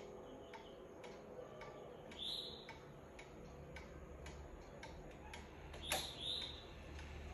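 ODO 54/10 chiming wall clock's pendulum movement ticking faintly and evenly, about two ticks a second, while its minute hand is turned by hand; a sharper click comes about six seconds in.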